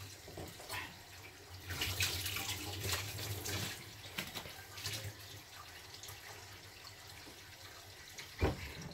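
Water running at a kitchen sink, with scattered light clicks and knocks of kitchenware being handled; a sharper knock near the end.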